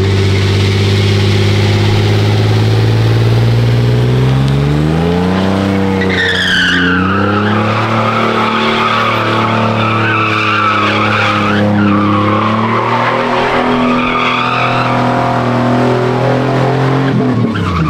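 Pickup truck doing a burnout: the engine is held at high revs, climbs about five seconds in, and the spinning rear tyres then squeal with a wavering, rising screech. The revs drop near the end.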